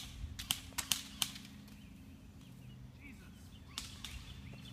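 Sharp snapping shots from airsoft guns, five in quick irregular succession in the first second or so and one more near the end.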